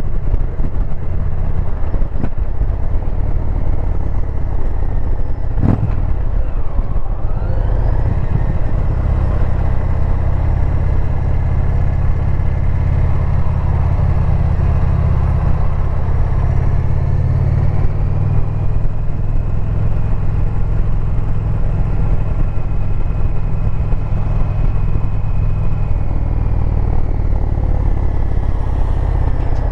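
2022 Indian Pursuit's V-twin engine running under way, with a steady low drone. Its pitch rises about seven seconds in.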